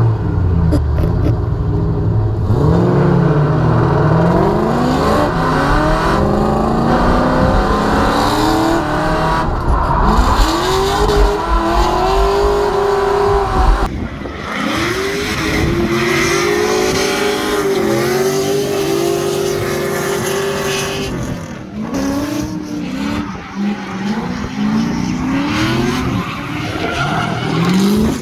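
Drift car engine revving up and down again and again over tire squeal. The deep rumble drops away about halfway through.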